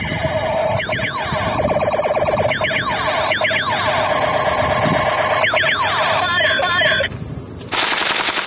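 Battery-powered toy Steyr AUG rifle's electronic firing sound effect: a steady buzzing tone with repeated falling sweeps, stopping about seven seconds in. Near the end, a short burst of rapid shots from a real Steyr AUG rifle.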